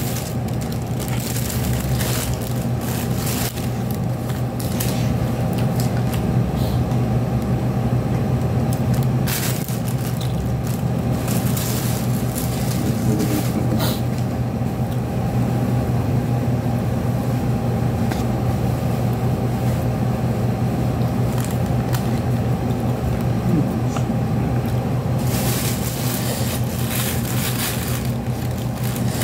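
A steady low mechanical hum, with scattered sharp clicks and scrapes from a spoon and fork working food on a plate while eating.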